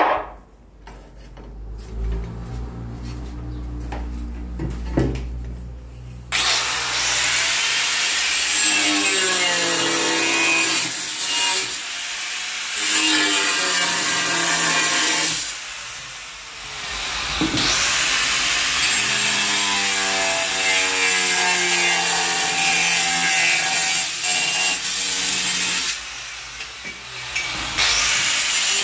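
Handheld angle grinder with a cutting disc cutting a wall tile. It is quieter for about the first six seconds, then turns into a loud, harsh cutting noise. The motor's pitch sags and recovers as the blade is pushed through the tile, and the noise eases off briefly two or three times between cuts.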